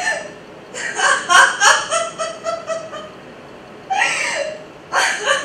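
A woman laughing: a run of about eight short, quick laughs, roughly four a second, then a further laugh-like burst with a falling pitch about four seconds in and another near the end.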